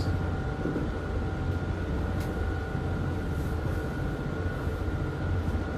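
Steady low rumble with a constant mechanical hum inside a sailboat's cabin while under way, and a faint click about two seconds in.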